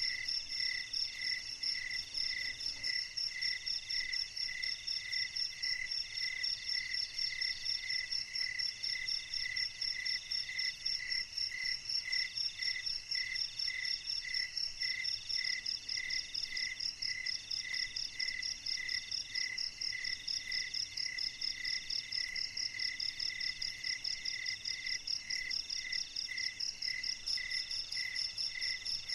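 Night chorus of crickets chirping together: one with a regular high chirp about twice a second, another in a fast, even trill higher up, and a third in long phrases with short breaks between them.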